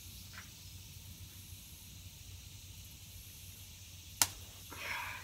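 Quiet background: a steady low rumble with faint hiss, and a single sharp click about four seconds in.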